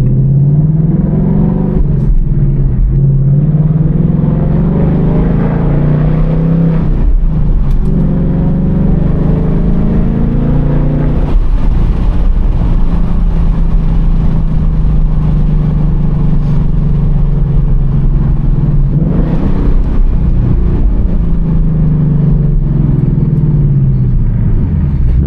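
2024 Ford Mustang GT's 5.0-litre V8 driving through the gears of its manual gearbox: the engine note climbs, drops briefly at each shift about two, seven and eleven seconds in, and holds steady at cruise before rising and falling again near the end.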